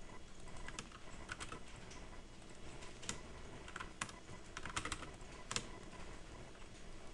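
Computer keyboard typing in short runs of a few keystrokes with pauses between, as AutoCAD commands are entered.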